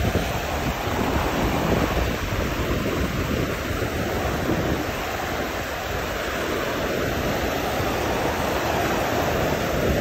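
Fast-flowing Niagara River water washing and splashing over a rocky shore ledge, with steady wind rumbling on the microphone.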